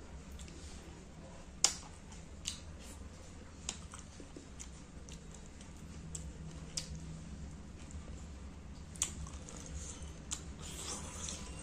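Close-miked eating of fish curry and rice by hand: chewing and squishy handling of the food, with scattered sharp wet clicks, the loudest about two seconds in, over a low steady hum.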